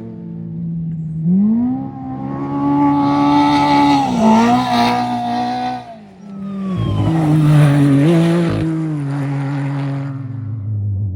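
Off-road race vehicle engine at hard throttle. It climbs in pitch about a second in and holds high revs, with a short dip around four seconds, then drops off sharply near six seconds. A lower engine note follows and fades toward the end.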